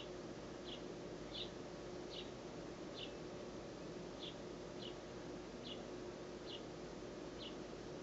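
Fledgling sparrow giving short, high begging chirps, about ten of them, one every three-quarters of a second or so, over a faint steady hum.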